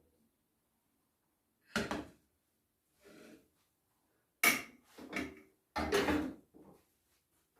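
A series of short knocks and clatters from handling things in a kitchen, such as drawers, cupboards and dishes. There are about six separate sounds with pauses between them, the loudest about halfway through and again about 6 seconds in.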